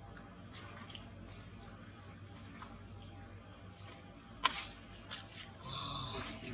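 Outdoor woodland ambience: a steady high insect whine under scattered light clicks, with one sharp click a little past halfway and a short chirp near the end.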